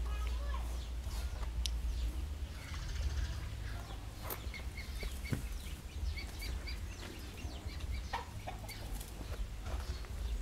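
Fowl clucking in runs of short repeated notes, over a steady low rumble.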